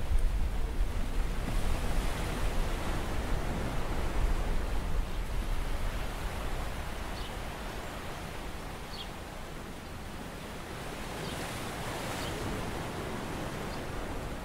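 Steady rushing noise of surf at the shore, with a few faint short ticks over it.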